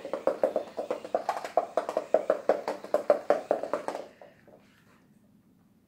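Motorized smart cat ball bouncing and rolling erratically over a hard floor, giving a rapid run of rattling knocks, several a second. The knocking stops abruptly about four seconds in.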